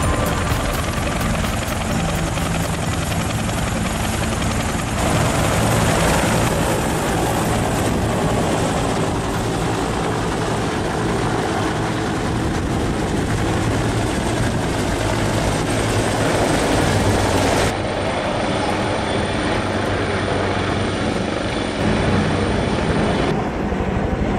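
Bell AH-1 Cobra attack helicopters running and flying, the two-bladed main rotor beating rapidly over the steady sound of the turbine engine. The sound shifts abruptly a few times where the shots change.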